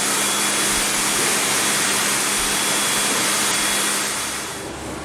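Steady rushing noise of bottling-line machinery with a faint low hum; it falls away about four and a half seconds in.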